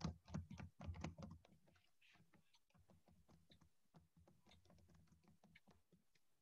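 Typing on a computer keyboard: a quick, irregular run of faint key clicks, louder in the first second and a half and lighter after that.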